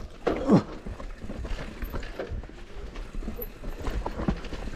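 Intense Tazer MX Pro electric mountain bike descending a dirt trail: tyres rolling over roots and ruts, with irregular knocks and rattles from the bike over the bumps and a low rumble.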